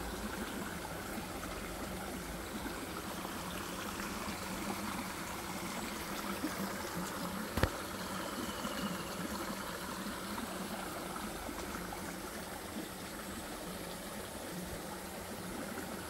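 Water churning and gurgling steadily in shallow pond water, with a single sharp click about seven and a half seconds in.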